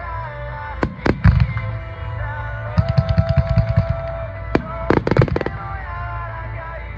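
Fireworks bursting over music: two booms about a second in, a quick run of rapid pops around three to four seconds, then another boom and a short cluster of bangs near five seconds.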